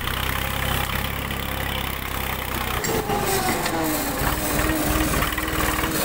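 Tractor engine running while pulling a plough through the soil. About halfway in, the engine note changes: a tone drops in pitch and then holds steady.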